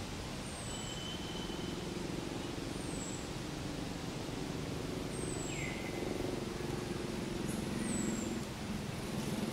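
Forest ambience: a bird repeats a short, high, falling note about every two and a half seconds, with a couple of lower whistles, over a steady low hum.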